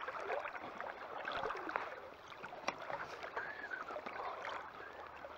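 Shallow creek water running over rocks, a faint steady rush with a few light clicks, picked up by a water-soaked microphone.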